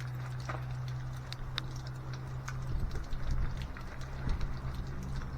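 Scattered light clicks and taps of hand work on a camper shell door handle as its screws go in, over a steady low hum.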